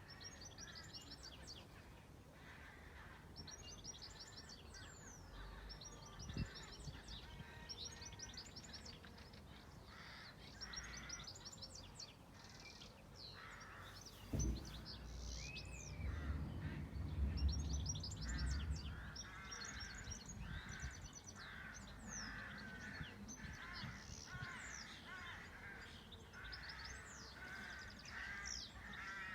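Several wild birds singing and calling, with quick high chirps and trills overlapping throughout. About halfway a low thump is followed by a few seconds of low rumble.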